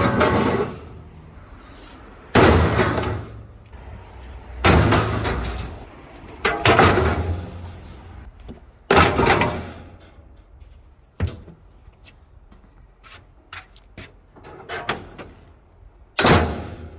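Scrap metal being loaded into a van: a series of loud crashes and metallic clatters, about six or seven heavy impacts each with a short ringing tail, with smaller knocks between.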